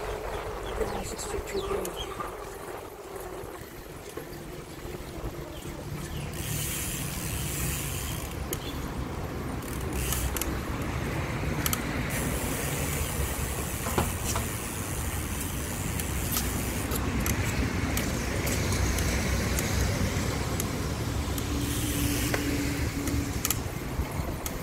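Riding noise from a bicycle on a paved path: a low rumble of wind on the microphone with tyre hiss that swells and fades twice, and a few sharp rattling clicks.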